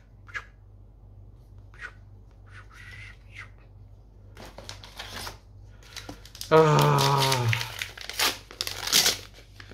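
Foil booster-pack wrapper crinkling and tearing as it is opened, with cards being handled; the crinkling is loudest in a dense run of strokes in the second half.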